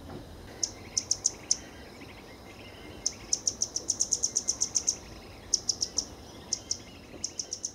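An animal call of sharp, high chirps repeated quickly in runs: a short run half a second in, a longer one of about two seconds from three seconds in, and more near the end, over a faint steady hiss.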